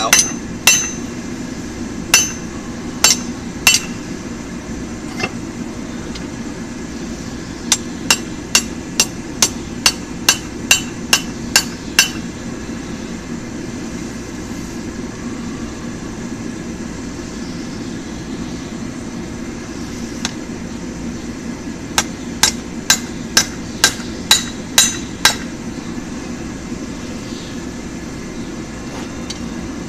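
Hand hammer striking hot mild steel bar on an anvil, knocking down the corners of a tong blank, in runs of sharp ringing blows about two a second with long pauses between. A steady low rush sits underneath.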